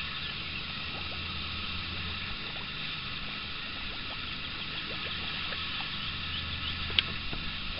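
Steady hiss with a low hum that drops away about two and a half seconds in and comes back near six seconds, faint small ticks, and one sharp click about seven seconds in.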